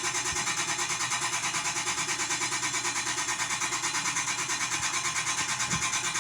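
Chefman kitchen appliance running with a steady grinding noise that pulses evenly about six times a second, a sound its owner finds scary and takes for a fault.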